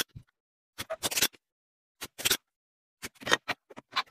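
A circuit board being handled and scraped on a work surface: several short bursts of scratching and scraping, separated by silence, as the board is worked on to take its heat sink off.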